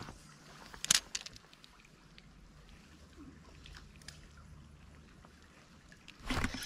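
Light spinning rod and reel being cast and worked: a few sharp clicks, the loudest about a second in, then faint steady noise, and a short burst of noise near the end.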